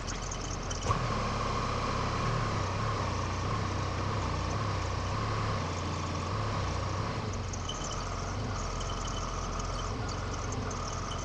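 Telehandler engine running steadily with a constant low hum while its forks are drawn out from the top of the stood-up wall form.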